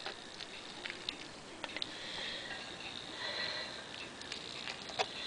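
Faint clicks and scrapes of a slotted spatula against a stoneware deep dish baker, over a soft hiss.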